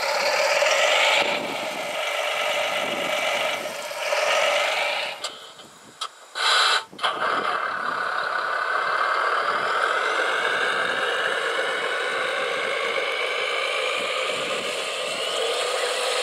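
Radio-controlled construction machines running: a steady electric motor and hydraulic whine with slowly gliding pitch, broken by a short dip and a brief loud burst about six to seven seconds in.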